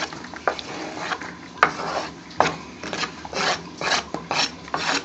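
A metal spoon scraping across a plastic chopping board in a run of short, uneven rasping strokes with the odd sharp click, sweeping chopped onion and coriander off the board into a bowl.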